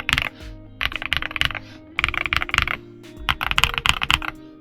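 Typing on a stock Redragon K707 Pro gasket-mount mechanical keyboard with Mint Mambo switches, in four quick bursts of key clicks with short pauses between them. Background music plays underneath.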